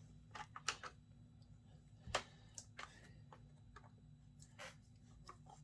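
Light scattered clicks and knocks of small metal parts and hand tools being handled during chainsaw reassembly, a few quick taps about half a second in and one firmer knock about two seconds in, over a low steady hum.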